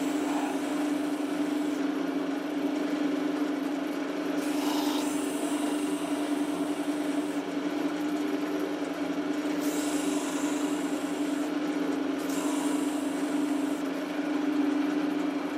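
A power tool running steadily with a constant hum, under a rubbing, scraping noise that changes abruptly several times.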